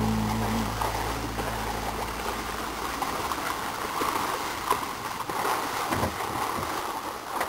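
Flowing water rushing and splashing along a narrow ride channel as a small ride boat floats down it, a steady rush with a couple of brief knocks about two thirds of the way through.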